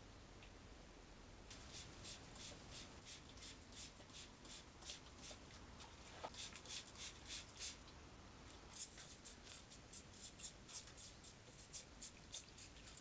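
Faint, steady lapping of a cat drinking tap water, about four laps a second, with a brief pause partway through.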